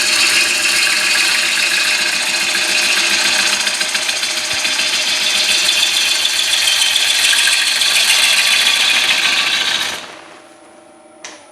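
Turning tool cutting into a spinning, soaking-wet hard maple bowl blank on a cast-iron wood lathe: a loud, steady tearing of shavings with a rapid flutter as the blank turns. The cut stops abruptly about ten seconds in, leaving the lathe spinning quietly, with a short click near the end.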